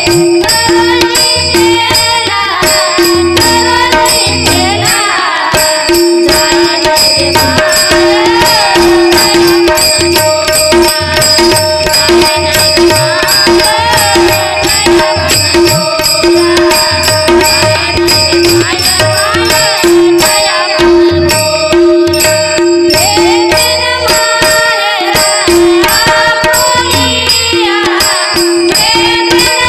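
Marathi devotional bhajan music in raga Bhairavi, with a drum-and-cymbal rhythm under a steady drone and melodic lines that glide in pitch.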